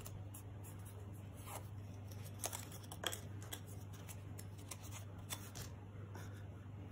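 Small piece of patterned cardstock being folded and creased by hand: faint paper rustles and a few soft clicks, over a steady low hum.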